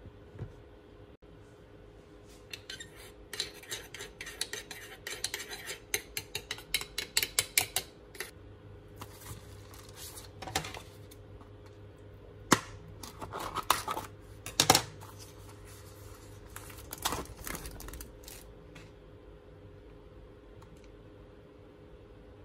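A metal spoon stirring sauce in a small bowl, clinking quickly and evenly against its sides for several seconds. It is followed by a few scattered clinks and knocks.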